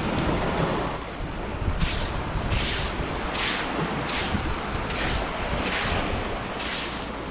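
Surf and wind buffeting the microphone, with a regular scratchy hiss repeating a little more than once a second from about two seconds in.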